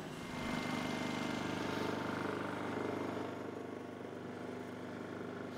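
A steady mechanical running hum like an idling engine, getting a little quieter about three seconds in.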